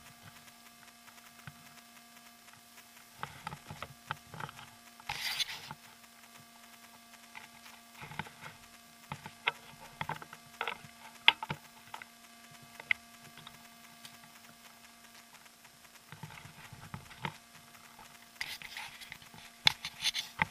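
Footsteps crunching over dry stony ground and twigs, in uneven bursts, with a few sharp clicks, the loudest about halfway through, over a faint steady hum.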